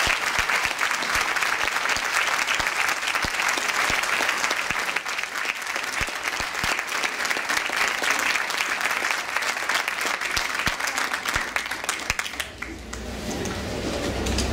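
Audience applauding steadily after a choral song. The applause dies away about twelve seconds in and a low rumble takes over.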